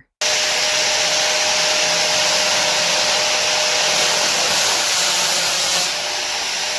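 Electric grinder running at speed against a sheet of A4 paper: a steady whine over an even hiss, coming in abruptly just after the start and easing slightly near the end.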